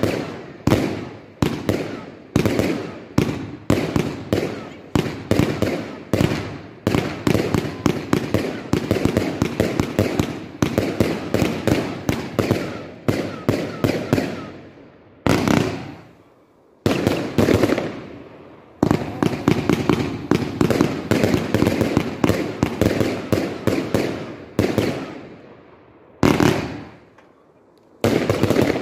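Multi-shot fireworks cake firing shot after shot, each shot banging as it launches or bursts and echoing, about one to two a second at first and then a dense run of crackling bursts. There are brief lulls about halfway through and again near the end.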